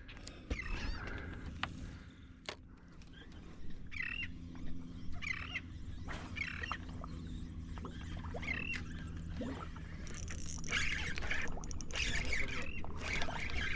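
Gulls calling in short repeated cries over a steady low hum. A rush of hissing noise comes in about ten seconds in.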